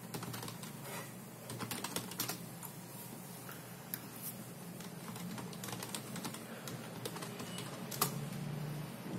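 Typing on a computer keyboard: irregular, scattered keystrokes, with a small flurry about two seconds in and a sharper click near the end.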